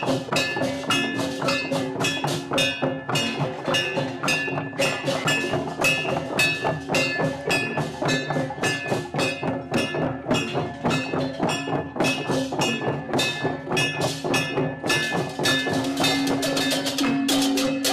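A Balinese tek-tekan ensemble: many wooden and bamboo kentongan slit drums struck in a fast, steady, interlocking clatter of about four strikes a second, with gamelan metal percussion ringing sustained tones underneath.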